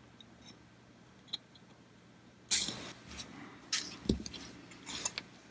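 Small sharp clicks and clatter from handling tools and small electronic parts on a workbench during capacitor fitting: four or five separate clicks over the last three seconds, one with a dull knock, after a quiet start.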